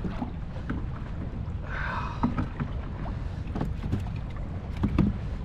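Wind rumbling on the microphone aboard a kayak, with a few light knocks and clicks and a brief higher hiss about two seconds in.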